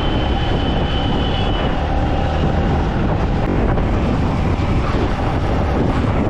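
Loud, steady road noise of running vehicles, with a thin high whine through the first second and a half.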